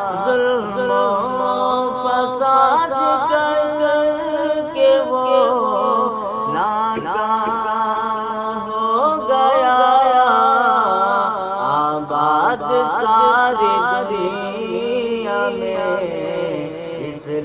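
A man's voice chanting an Urdu poem to a melody, drawing out long held notes that slide up and down in pitch.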